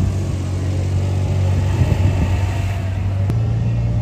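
A motor vehicle's engine runs steadily with a low hum, over faint street background noise. The hum shifts abruptly near the end.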